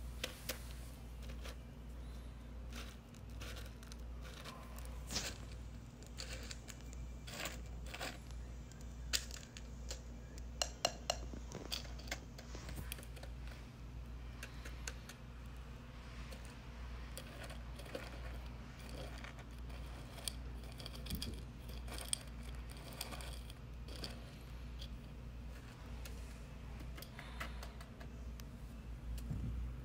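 Dry cat kibble rattling and clicking into ceramic bowls, with clinks as the bowls are handled; the clicks are busiest in the first half and scattered later, over a steady low hum.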